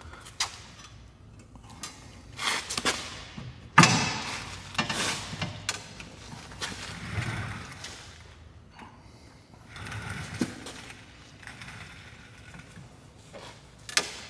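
Rear coilover spring and suspension parts being handled and fitted by hand: scattered metal clicks and knocks, the loudest a sharp knock about four seconds in.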